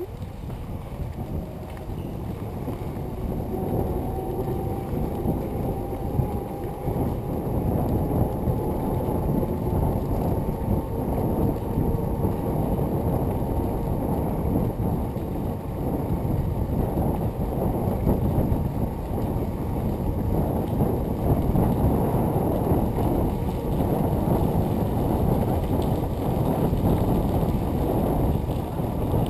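Wind rushing over a handlebar-mounted microphone, with bicycle tyres rolling on the trail, as the bike rides along. It is a steady low rush that grows louder over the first few seconds and then holds.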